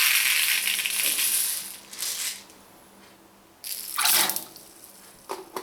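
Liquid fabric conditioner poured and splashing into a wringer washing machine's tub: a long pour of about two seconds, then a short second splash about four seconds in.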